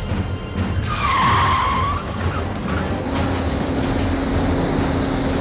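A sedan's tyres squealing in one arching squeal lasting about a second, about a second in, over a rumble of car engine and road noise. From about three seconds in, a steady low drone of the police boat's twin outboard motors running at speed.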